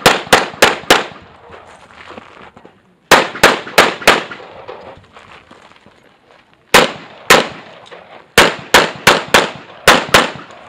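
Competition pistol firing fast strings of shots, about three a second within each string, with pauses of one to two seconds between strings as the shooter moves to new shooting positions.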